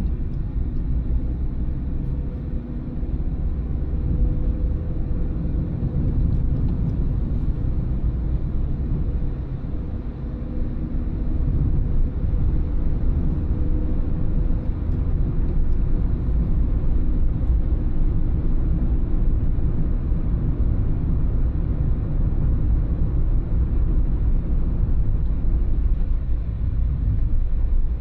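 A car driving on town roads: steady low engine and tyre rumble, getting a little louder about halfway through.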